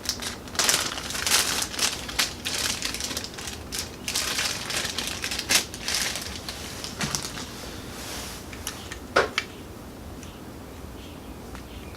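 Packaging crinkling and rustling as the newly arrived clutch friction plates are unwrapped and handled, with a couple of sharp clicks a little after halfway. It dies down near the end.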